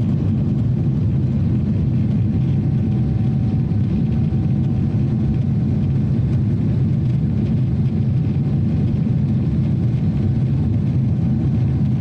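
Steady jet airliner cabin noise in flight: a loud, even low drone of the engines and airflow, with a faint steady hum above it.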